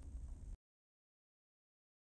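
Near silence: a faint low background rumble that cuts off about half a second in, then dead silence.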